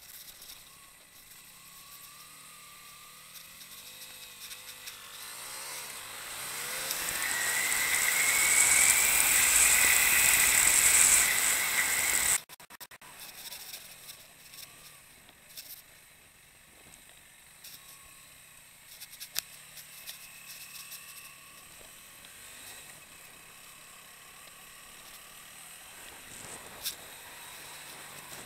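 Motorcycle running along a dirt trail, engine and wind noise on the microphone. About five seconds in the noise swells loudly for several seconds, then cuts off suddenly; after that the bike runs quieter, with a couple of sharp knocks later on.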